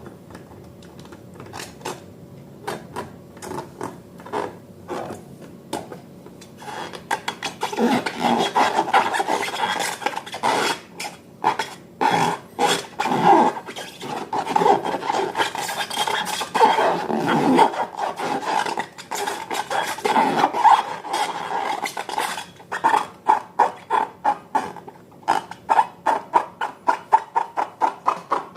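Slime being stirred and squished in a bowl: wet clicking strokes that start faint, grow louder and busier after a few seconds, and settle into a quick even rhythm of a few strokes a second near the end.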